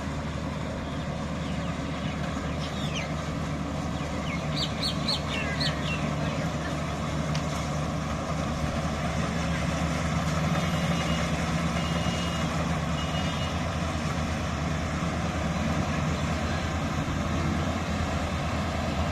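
Combine harvester's diesel engine running steadily while cutting wheat, a continuous drone. A few short high chirps sound about five seconds in, and a series of short high beeps about halfway through.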